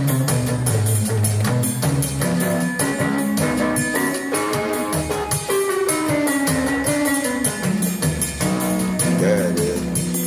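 Portable electronic keyboard being played live, with changing melody and bass notes over a steady drum beat.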